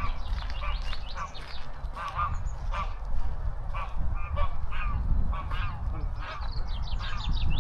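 Geese honking: many short calls in quick succession, several a second, over a steady low rumble.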